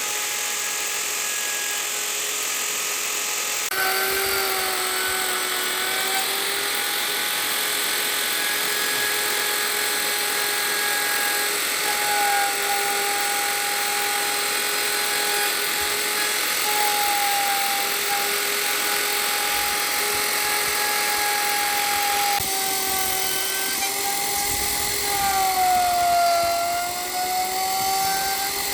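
Electric power tool motor running with a steady high whine over a hiss of cutting or sanding noise. Its pitch dips briefly under load near the end.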